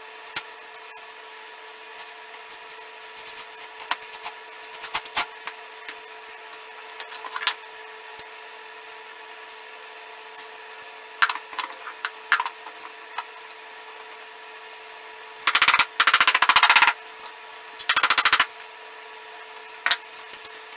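Cordless drill running in two short, loud bursts with a rapid rattling pulse, about three-quarters of the way through and again shortly after. Before that come scattered clicks and knocks of tools and wooden parts being handled, over a faint steady hum.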